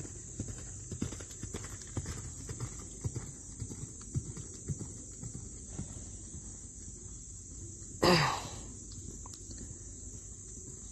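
Hoofbeats of a ridden horse on sand arena footing, an uneven run of soft thuds that grows fainter after about six seconds. About eight seconds in there is one loud, brief sound that falls in pitch.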